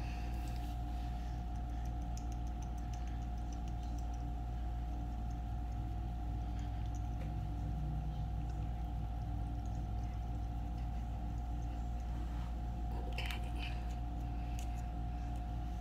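Steady low background hum with a faint constant tone, under soft handling clicks. Near the end comes a brief cluster of clicks and rattles as a small plastic bottle is handled.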